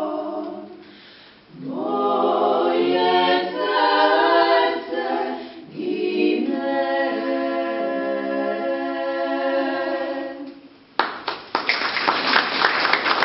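Women's vocal ensemble singing a cappella, the phrases broken by short pauses about a second and six seconds in. The song ends about ten and a half seconds in, and the audience breaks into applause.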